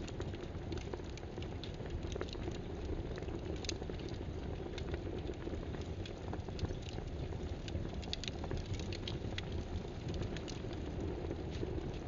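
Steady pattering, rain-like noise with a low rumble beneath it, with scattered light clicks that come irregularly, a few at a time.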